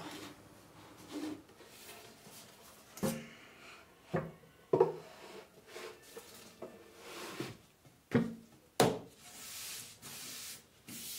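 Black particleboard floating shelf being slid onto its tight-fitting hidden wooden frame on the wall: a series of wooden knocks and thumps, a few of them sharp, with a scraping rub of wood sliding on wood about nine to ten seconds in.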